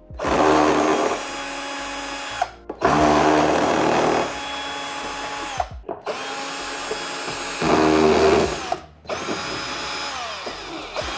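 Cordless drill-driver backing screws out of a TV's metal stand bracket: four separate runs of the motor, each louder at first, then running steady, and winding down as the trigger is released.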